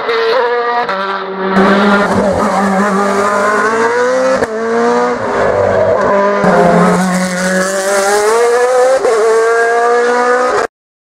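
Racing prototype's engine at full throttle, its pitch climbing through each gear and dropping back at every shift and lift as the car takes a run of bends. The sound cuts off suddenly near the end.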